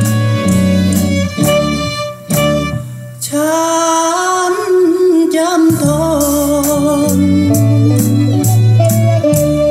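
Pioneer S-C4-S bookshelf speakers playing a Thai song: band with bass notes, easing off briefly, then a voice singing a wavering melody from about three seconds in.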